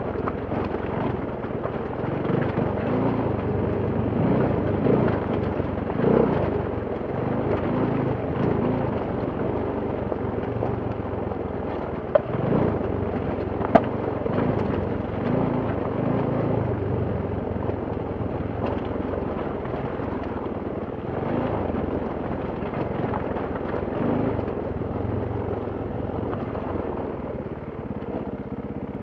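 KTM enduro motorcycle engine running at low revs on a steep rocky descent, the pitch rising and falling with throttle changes. Two sharp knocks come about twelve and fourteen seconds in.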